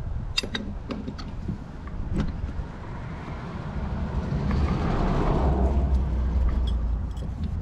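A road vehicle passing by, its noise swelling to a peak about five seconds in and then easing off over a steady low rumble. A few sharp metallic clicks come in the first couple of seconds.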